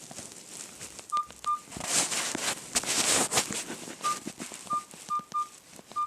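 Keypad beeps of a Sigma Mobile Comfort 50 push-button phone: seven short, single-pitch beeps at an uneven pace as buttons are pressed, over rustling handling noise.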